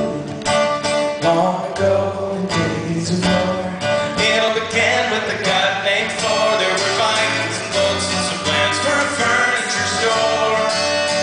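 Live band playing a song's instrumental intro: strummed acoustic guitar, with a low bass line joining about two seconds in.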